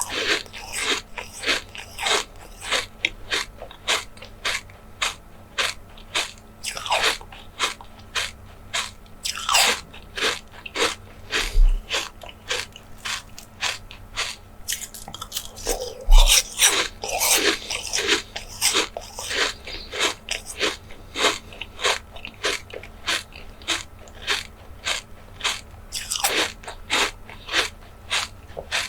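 Close-miked ASMR eating sounds: steady, rapid crisp chewing and biting, about two to three crunchy clicks a second, with a few wetter crackly bursts.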